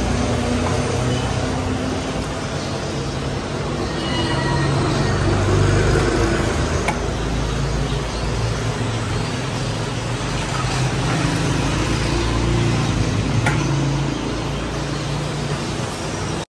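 Steady street traffic noise with passing motorbikes and cars, and a few sharp clinks of a steel ladle against steel pans and bowls.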